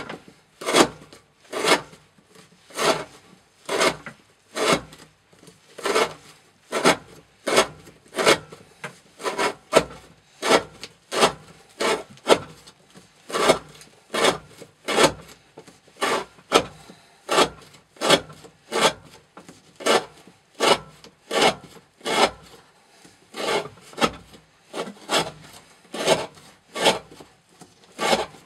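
Repeated slicing cuts of an N690 steel folding-knife blade with a 40° V-edge through 20 mm rope, a short rasping stroke about once a second, each cut severing a piece in an edge-retention cutting test.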